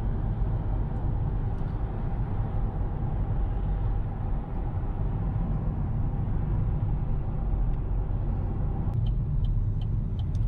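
Inside a moving car: steady tyre and engine rumble. About nine seconds in, the road noise eases and the turn-signal indicator starts ticking, about three clicks a second.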